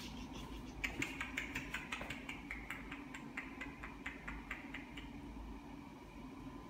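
A run of quick light clicks, about four a second, starting about a second in and dying away after about four seconds, over a steady low hum.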